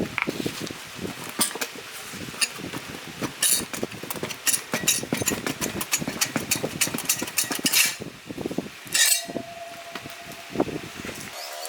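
Hand work on metal motorcycle parts: a rapid, irregular run of taps, clicks and knocks, with a brief steady whine about nine seconds in.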